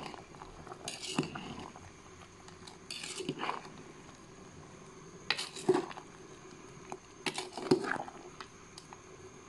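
Metal spoon stirring sliced bananas in coconut milk in a metal pot: about four short bouts of scraping and knocking against the pot, roughly two seconds apart, with the sharpest knocks a little past halfway and near the end.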